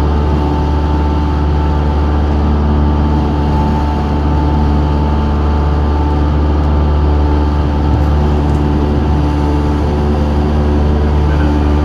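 Steady drone of a light aircraft's piston engine and propeller, heard from inside the cabin: a constant low hum with higher tones above it and no change in pitch.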